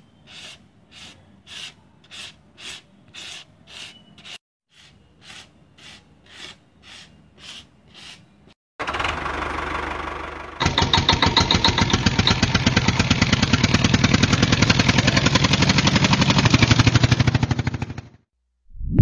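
A small hand brush swept over concrete in short, even strokes, about two a second. About nine seconds in, a small DC electric motor spinning a fan starts with a steady buzz, gets louder about two seconds later, and stops shortly before the end.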